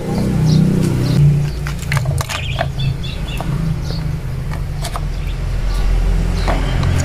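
A steady low engine rumble, with scattered light clicks and taps over it.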